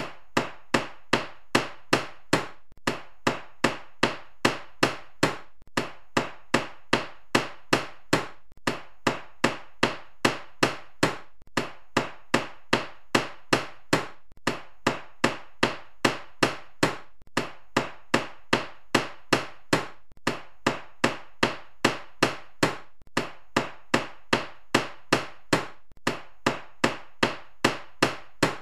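Carpenter's hammer striking repeatedly in a steady rhythm, about three blows a second, in runs of about eight blows with a brief pause between runs. Each blow is a sharp knock with a short ring.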